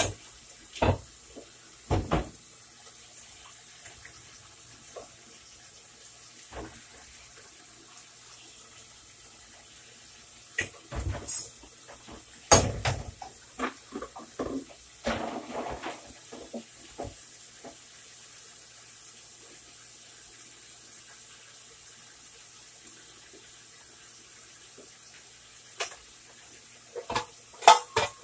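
Knocks and clatter of saucepans being handled and moved about on an electric stove, over a faint steady hiss. The sounds come in a few short clusters near the start, in the middle and near the end.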